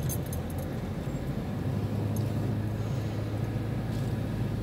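Car engine and tyre noise heard from inside the cabin while driving: a steady low hum with no sharp events.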